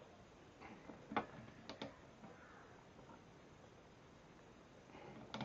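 A few quiet, sharp clicks from a hand screwdriver turning a screw into a metal table saw stand: one a little over a second in, a quick pair just after, and another near the end.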